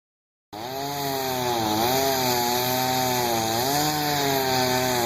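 Two-stroke chainsaw running under load as it cuts into a tree. The engine pitch sags and recovers every second or two as the chain bites into the wood.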